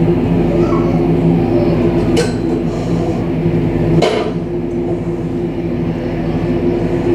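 Twin Pratt & Whitney Canada PW127 turboprops of an ATR 72-500 at taxi power, their six-bladed propellers giving a steady droning hum. Two brief sharp clicks come about two and four seconds in, and the hum is a little quieter after the second until near the end.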